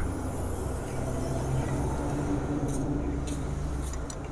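Steady low rumble of a running vehicle engine, with a few faint clicks about three seconds in.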